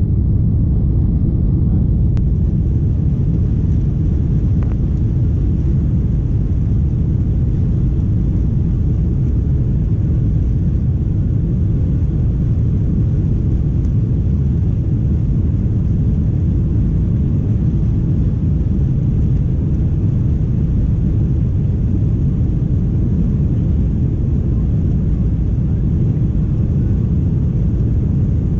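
Boeing 747 on its takeoff roll, heard inside the cabin: a loud, steady low rumble of the engines at takeoff power and the wheels running on the runway.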